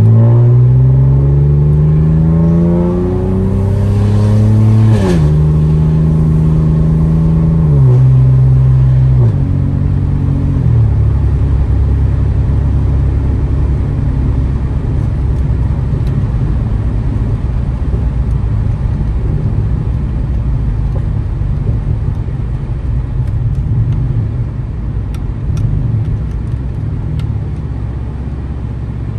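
Catless, straight-piped exhaust of a 2015 Ford Taurus Limited under hard acceleration: the engine note climbs, then drops with an upshift about five seconds in and again at about eight and ten seconds. It then settles into a steady low drone while cruising.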